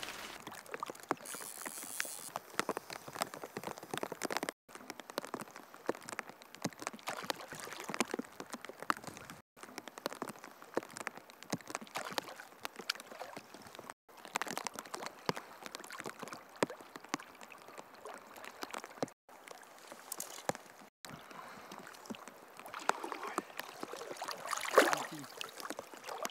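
Rain pattering on a river's surface as countless small drops over the steady wash of flowing water, with a louder splash near the end as a trout breaks the surface.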